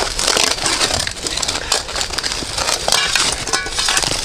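Continuous crunching and crackling of dry debris such as grass, soil and rubble being trodden and shifted, full of small sharp snaps.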